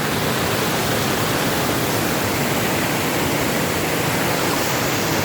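Waterfall rushing water: a loud, steady, even roar of falling and flowing water.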